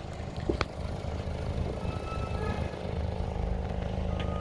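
A 2006 Audi A4's engine idling steadily, with a couple of short clicks about half a second in.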